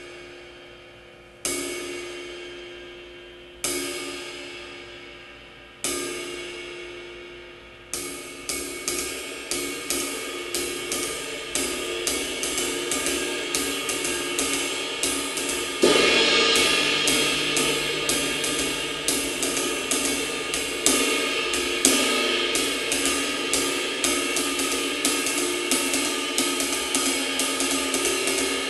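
Istanbul Mehmet Legend Dark 21-inch ride cymbal: four single strokes about two seconds apart, each left ringing and fading. It is then played in a fast, steady groove, with a louder, washier stroke about halfway through.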